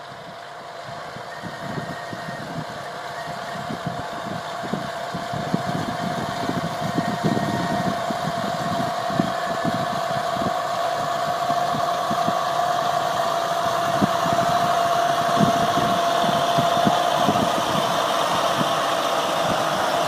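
A machine's engine running with a steady whine over a rough low rumble, growing gradually louder.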